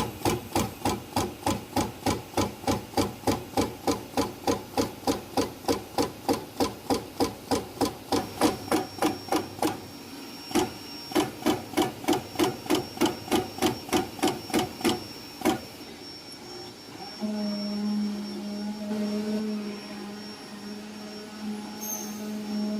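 CNC leather cutting machine's punching head striking in a steady rhythm, about three strokes a second, with a short pause about ten seconds in. The punching stops around fifteen seconds in and a steady machine hum takes over.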